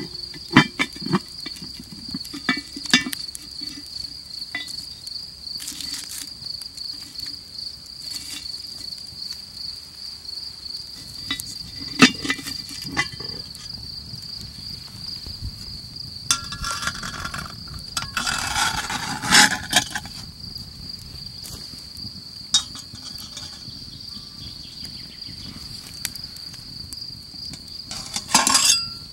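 Crickets chirping steadily at one high pitch, with scattered clicks and knocks from a cast-iron pot lid and burning sticks being handled. A little past halfway comes a few seconds of scraping and rustling, and a short louder clatter near the end.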